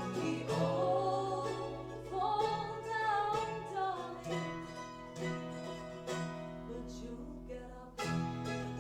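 Live unplugged acoustic music: plucked acoustic guitar with a wordless, gliding vocal melody over it for the first few seconds. The playing dips briefly near the end, then comes back in.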